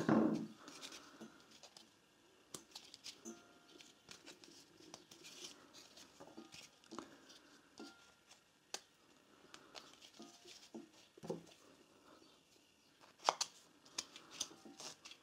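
Hands handling the plastic pulley and starter cord of a Honda GX160 recoil starter: scattered small clicks, taps and faint rubs, with a few sharper clicks near the end as a screwdriver works at the cord's knot in the pulley.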